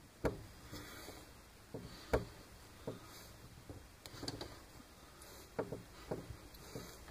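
Irregular light clicks and taps of small parts being handled on a wooden workbench, with two sharper knocks, one shortly after the start and one about two seconds in.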